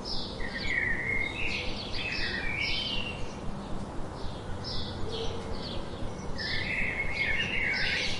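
Birdsong: a bird repeats short, high notes throughout, and lower warbled phrases come about half a second in and again near the end, over a faint steady background hum.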